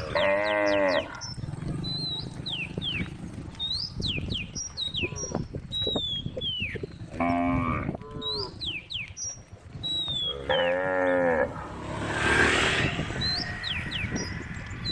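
Cows mooing: three separate calls of about a second each, near the start, in the middle and about two-thirds through. Between them, short high falling chirps repeat over and over, and a brief rushing noise comes near the end.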